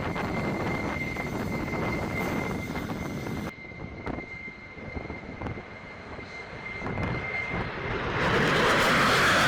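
F-16 fighter jet engine running with a steady high-pitched whine over a rumble. About three and a half seconds in the sound drops sharply quieter, and just before the end a loud, rushing jet noise sets in.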